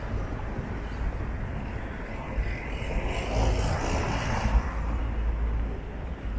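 A car passes on the street, its noise building about two seconds in and fading by about five seconds, over a steady low rumble of street noise.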